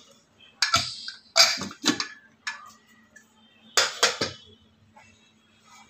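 Metal knocks and clatter of a pressure cooker lid being twisted free and lifted off the pot, a few sharp knocks in two clusters.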